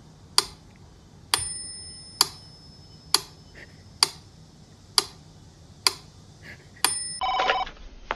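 Mechanical metronome ticking steadily, about one sharp tick a second, eight ticks in all. Its bell rings with the tick about a second in and again near the end.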